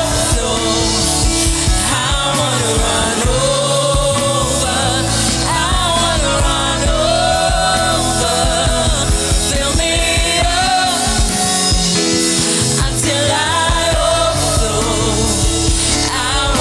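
Christian worship song: a singer holding long, wavering notes over a steady instrumental backing.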